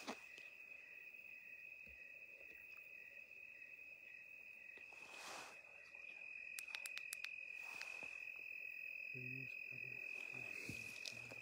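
Night insects trilling steadily at one high pitch, with a couple of soft rustles and a quick run of light clicks around the middle.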